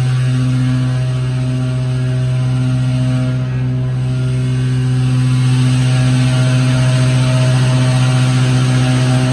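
Hydraulic elevator's pump unit running with a loud, steady hum and drone, growing a little louder about five seconds in. The elevator is extremely low on hydraulic oil.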